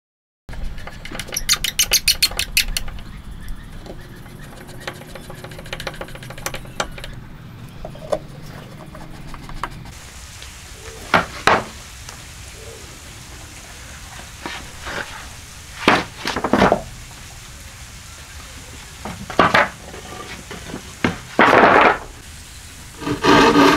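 Hand woodworking on a concrete floor: a quick run of rapid scraping strokes from a hand tool near the start, then several separate sharp wooden knocks and clatters like offcuts dropped on concrete. Rhythmic hand-saw strokes begin just before the end.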